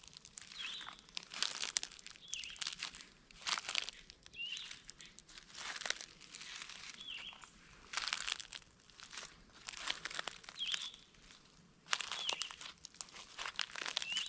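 Footsteps crunching through dry fallen leaves and ground cover, a step every second or two. A short high chirp repeats every second or two between the steps.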